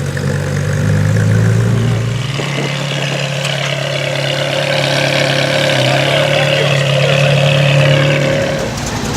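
Ferrari V8 engine sounds: a Ferrari F355's V8 runs for the first two seconds. It then cuts to a Ferrari 360 Modena's 3.6-litre V8 running steadily, its pitch nearly level, easing off near the end.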